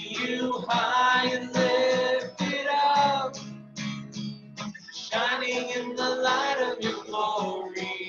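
A man sings a praise song in phrases while strumming an acoustic guitar.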